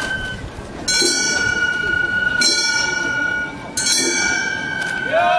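Three ringing strikes on small bronze hand gongs (kane) of Gion-bayashi festival music, about a second and a half apart, each ringing on after the hit. A bamboo flute comes in near the end with a rising note.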